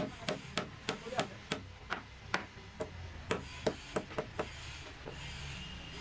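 Hand hammer striking repeatedly under a log on a sawmill carriage, about three blows a second, stopping about four and a half seconds in.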